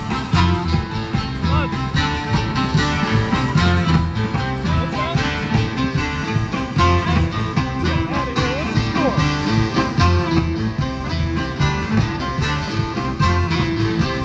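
A live bluegrass band playing, with acoustic guitar and plucked strings over a steady beat.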